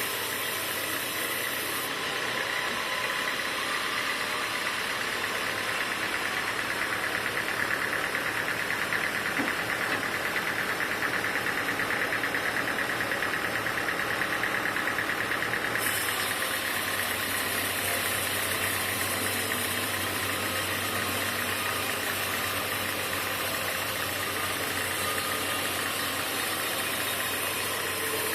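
Sawmill machinery running steadily with a dense mechanical noise. A high hiss drops out about two seconds in and returns about halfway through.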